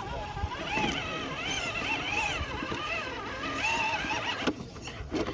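Electric drive motor of a scale RC rock crawler whining, its pitch rising and falling as the throttle is worked.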